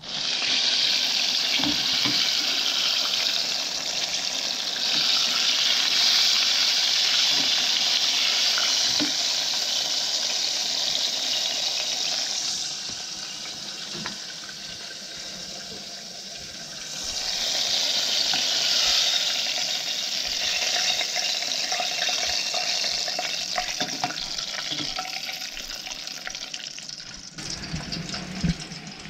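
Floured sucker fillets deep-frying in oil at about 350°F: a steady sizzle with small crackles. It eases for a few seconds around the middle, then swells again.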